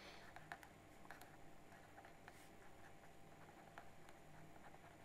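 Faint scratches and small taps of a pen writing on paper, over quiet room tone.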